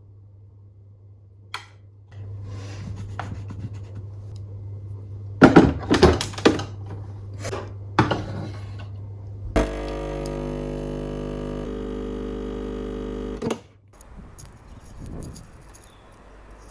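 Household knocks and clatter over a low hum, then a steady electric buzz from an appliance for about four seconds that stops abruptly.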